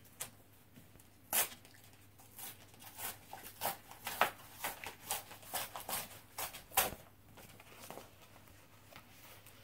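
A paper mailing envelope being torn open and handled: a string of short rips and rustles, the loudest about two-thirds of the way through.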